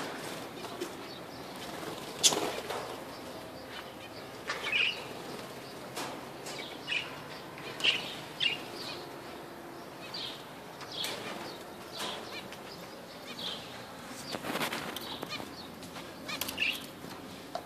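Budgerigars giving short scattered chirps, with bursts of wing fluttering now and then, the longest near the end.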